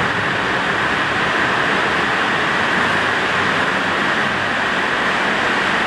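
Heavy rain pouring down steadily, an even, unbroken hiss.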